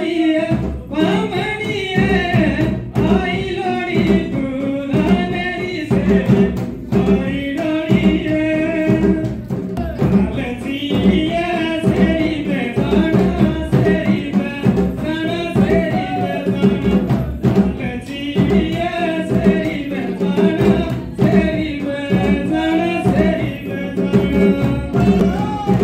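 Himachali folk music for a group dance: a sung melody over a steady drum beat.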